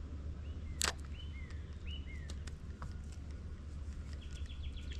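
A single sharp swishing snap about a second in, over a steady low rumble, with several short chirps that bend up and down, from a small bird, in the first couple of seconds and a quick run of ticks near the end.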